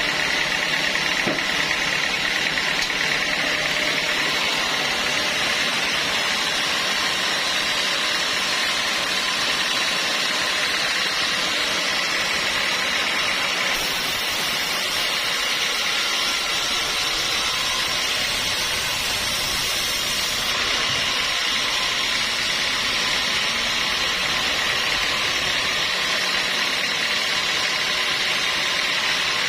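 Sawmill saw running steadily, a continuous even mechanical noise with no breaks.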